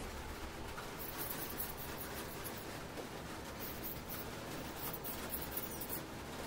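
Small brush scrubbing the inside of the bore of a metal lathe bearing housing, cleaning the bearing seat: quick, scratchy strokes that start about a second in.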